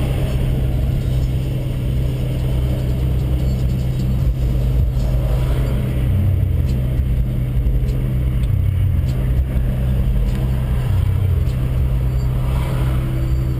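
Steady engine and road noise inside a Volkswagen Saveiro pickup's cab as it drives slowly, a continuous low hum.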